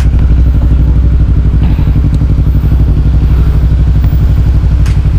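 Yamaha MT-10's crossplane inline-four idling steadily, a loud, even low engine pulse close to the microphone.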